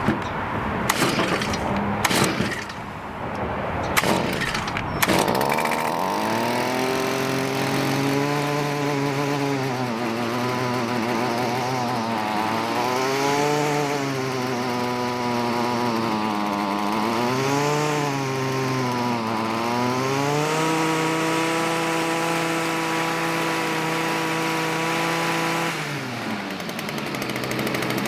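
A Stihl FS55R string trimmer's small two-stroke engine, fitted with a new aftermarket carburetor, being pull-started: a few sharp pulls, then it catches about five seconds in and runs, revving up and down several times before holding a steady speed. Near the end its pitch falls away as it drops off the throttle.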